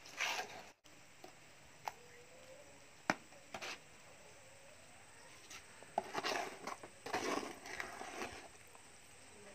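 Wet cement mortar slopping and scraping as it is tipped out of a plastic bucket and pushed into a paint bucket, in several short wet bursts, with a couple of sharp knocks between.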